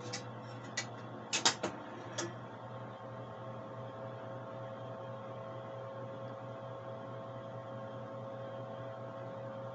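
An 8-inch floppy disk is slid into a TRS-80 Model II's built-in drive and the drive door latched shut: a few clicks in the first two seconds, with the loudest clack about a second and a half in. After that the computer runs with a steady hum and a faint whine.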